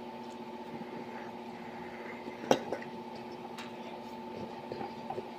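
Cutlery clinking against a dish during a meal: one sharp clink about two and a half seconds in, then a few lighter clicks, over a steady background hum.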